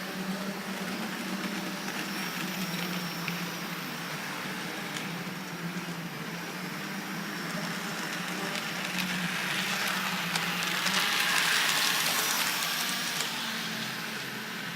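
H0-scale model tram running along layout track: a steady motor hum with small wheel clicks on the rails, growing louder as it passes close about eleven seconds in, then fading.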